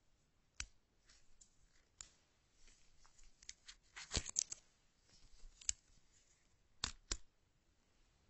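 Paper and card packaging handled close up: the iPhone box's card insert and sticker sheet rustling and clicking as they are picked up and moved. There is a cluster of crisp clicks about four seconds in and two sharp taps near the end.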